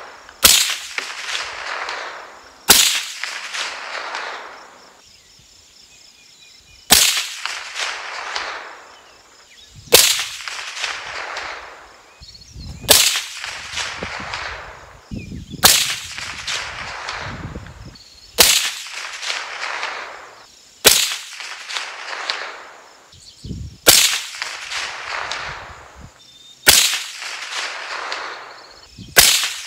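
A 300 Blackout AR pistol with a 7.5-inch barrel firing supersonic Wolf ammunition, about eleven single shots spaced two to three seconds apart, each sharp report trailing off in a long rolling echo.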